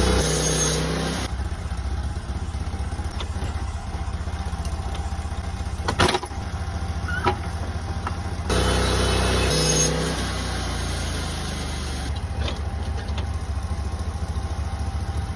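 Portable sawmill's engine running steadily while milling a Douglas fir log, growing louder briefly at the start and again about eight and a half seconds in. A sharp knock sounds about six seconds in, with a lighter one a second later.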